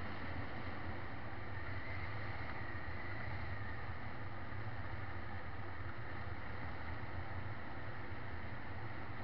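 Steady running noise of a vehicle driving along a road: a constant low hum with road and wind noise on the microphone.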